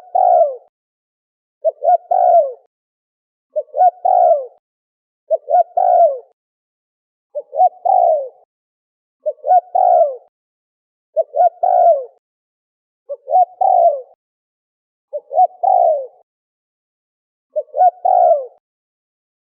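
A dove cooing: the same short phrase repeated about every two seconds, ten times, each a few quick notes running into a longer falling coo.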